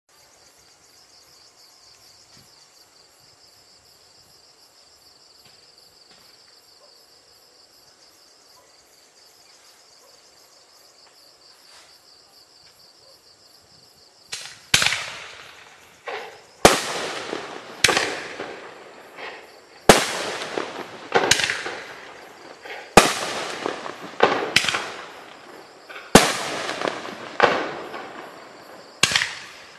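35-shot, 2.25-inch firework cake firing: after a faint, steady high chirring, the shots start about halfway in and follow one another roughly every second, about a dozen sharp bangs, each trailing off into a crackling decay.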